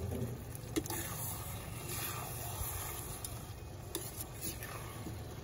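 Steel slotted spoon stirring a thick brinjal bharta in an iron kadhai over a wood fire: soft, faint scraping and stirring with a couple of light knocks against the pan.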